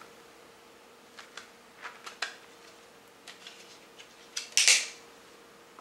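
Plastic CD jewel case being handled and opened: a few light clicks and taps, then a louder scraping crackle lasting about half a second, some four and a half seconds in.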